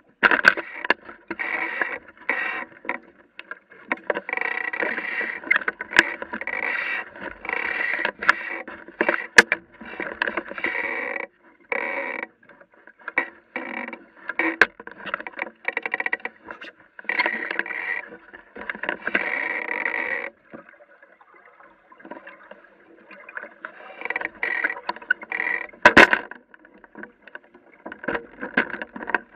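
Water slapping and gurgling against the hull of a small Aqua Muse sailboat under way, in uneven choppy bursts with a brief lull past the middle and a few sharp knocks.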